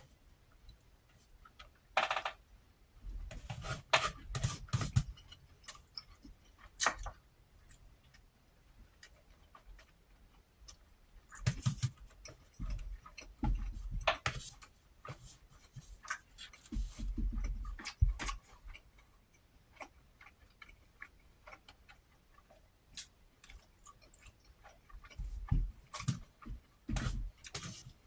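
Close-miked eating: chewing, with wet mouth clicks and smacks and clusters of crunching and munching.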